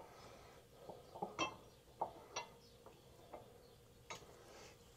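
Faint, irregular light clicks and taps, about seven or eight, from gooseneck hitch bolts, plates and hardware being handled.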